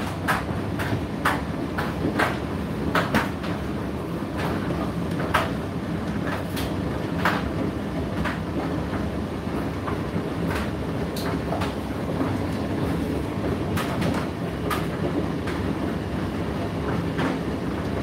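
Indesit IDC8T3 8 kg condenser tumble dryer running, a steady low rumble and hum from the turning drum, with irregular clicks and knocks as the load tumbles inside.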